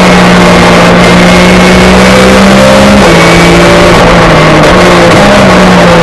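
Porsche 911 GT3 Cup race car's flat-six engine running hard at high revs, heard from inside the cockpit and very loud. Its pitch drops sharply about three seconds in, as at a gear change, and shifts again about a second and a half later.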